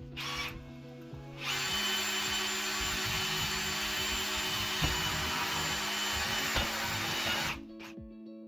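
Ryobi cordless drill running steadily for about six seconds, boring a hole through the wooden window frame; it starts about a second and a half in and stops near the end.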